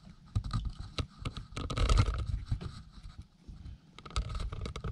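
Handling noise from a camera being turned by hand inside a tight ceiling cavity: irregular scrapes, rubs and small clicks, loudest about two seconds in.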